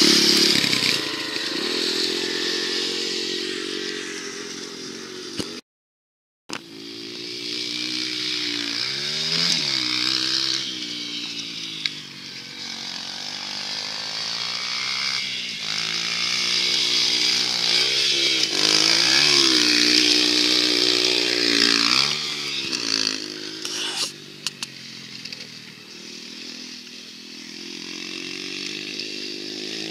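Yamaha TT-R dirt bike's single-cylinder four-stroke engine revving up and falling back again and again as it is ridden around a dirt track. It is loudest as the bike passes close at the start and again about two-thirds in, and fainter and more distant near the end. The sound cuts out for about a second early on.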